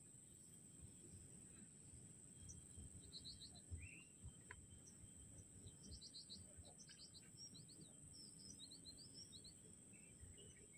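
Faint outdoor ambience: birds chirping in quick clusters of short notes, about three seconds in and again from about six to nine and a half seconds, over a steady high insect drone and a low rumble.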